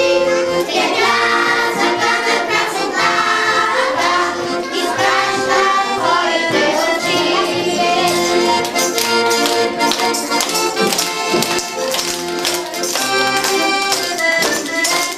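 A piano accordion plays a song while a group of young children sing along. The children clap their hands in the later part.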